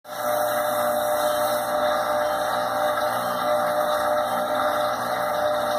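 Samsung dishwasher running steadily with a constant pump hum, stuck in its LC leak-error cycle: water collected at the leak sensors in the base tray makes it keep pumping to drain.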